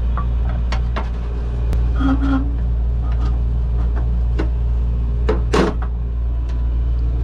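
Scattered clicks and knocks as a new condenser fan motor and its wiring are handled and worked into the fan bracket, with a sharper clunk about five and a half seconds in. A steady low hum runs underneath.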